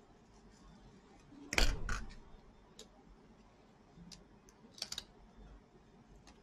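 Small cutter knife prying at the rubber foot strip on a laptop's plastic base: a thump with a quick cluster of scraping clicks about one and a half seconds in, then scattered lighter clicks and a sharper pair near five seconds.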